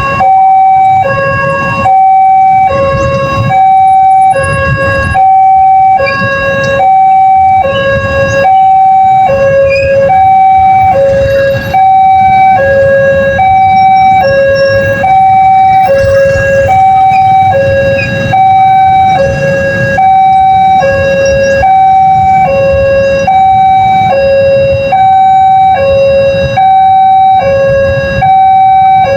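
Railway level-crossing warning siren of the Daop 2 Bandung type, sounding a loud repeating two-tone high-low pattern, about one cycle every 1.3 seconds, over a low rumble.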